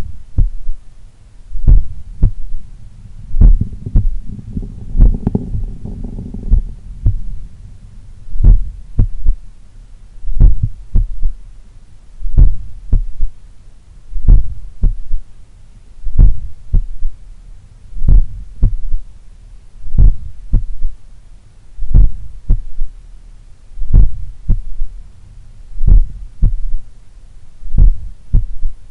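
Slow, strong heartbeat heard through a stethoscope at the cardiac apex, about one beat every two seconds, each beat a cluster of low thuds: the two normal heart sounds followed by a third heart sound (S3), which the uploader puts down to blood recoil or a slightly larger, supple left ventricle. A brief noisy hiss about four to six seconds in.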